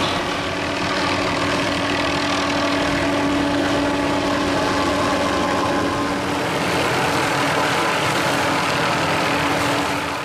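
Helicopter carrying a suspended circular-blade tree-trimming saw, with steady engine and rotor noise and a steady hum that fades a little over halfway through.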